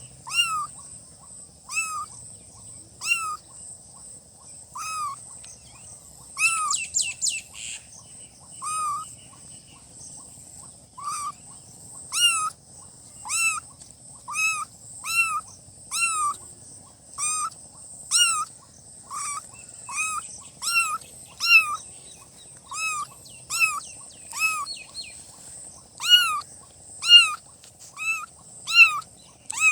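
Newborn kittens meowing: short, high-pitched cries that rise and fall, about one a second, with a quick run of several together about seven seconds in. A faint steady high hiss lies underneath.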